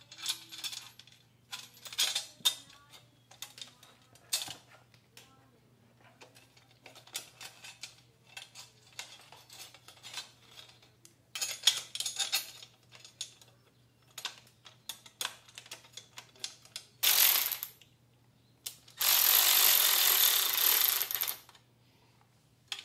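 Metal clinks and handling rattles as an aluminium radiator guard is positioned on a dirt bike, with ratchet clicking as its bolt is run in. Near the end comes a brief loud rushing noise, then a louder steady rushing noise lasting about two and a half seconds.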